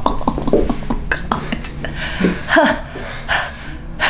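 Brief non-word vocal sounds from people, short murmurs or a throaty grunt, among a few short clicks.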